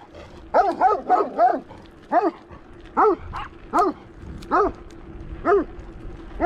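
Dog barking repeatedly while chasing a bicycle: about ten sharp barks, several in quick succession in the first two seconds, then roughly one a second.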